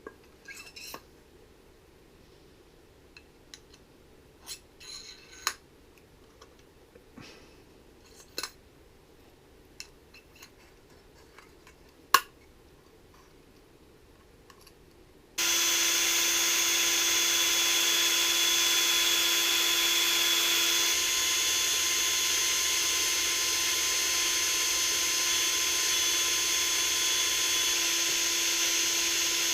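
Scattered clicks and taps of handling, one sharp click the loudest. About halfway an electric drill starts and runs steadily at high speed with a steady whine, spinning a Prox line remover bit that winds fishing line off a reel.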